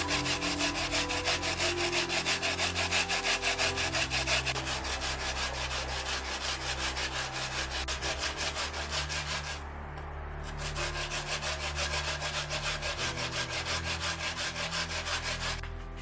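Raw peeled potato rubbed back and forth on a hand grater: a rapid, even rasping scrape of several strokes a second. It pauses for about a second near the middle and stops shortly before the end.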